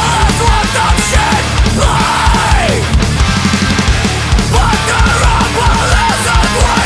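Loud post-hardcore rock music with a pounding drum beat; about two seconds in, a line slides down in pitch.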